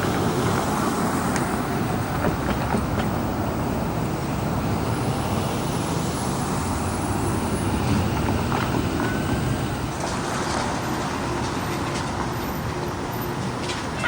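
Road traffic passing: a steady rush of vehicle noise with no single loud event.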